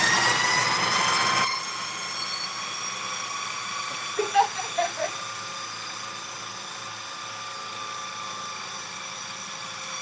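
Food processor motor running at full speed, chopping chickpeas, herbs and spices into a coarse falafel mix, with a steady whine. The loudest, rougher part of the noise drops away about a second and a half in, and a few short clatters come about four to five seconds in.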